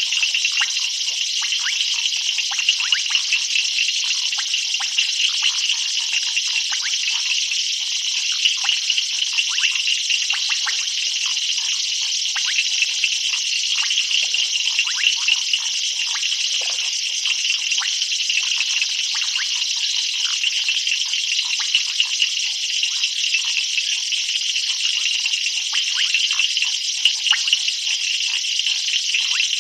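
A dense night chorus of frogs, many short overlapping calls, over a steady high-pitched trilling of insects.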